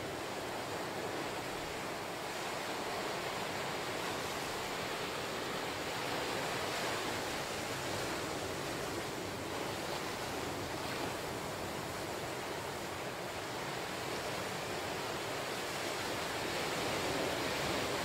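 Ocean surf: small waves breaking and washing up a sandy beach between lava rocks, a steady rushing wash that swells gently in loudness as each wave comes in, loudest near the end.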